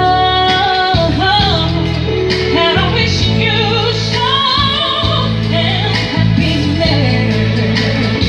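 A woman singing through a shop's PA sound system over a backing track, holding long notes with a wavering vibrato over steady bass and drums.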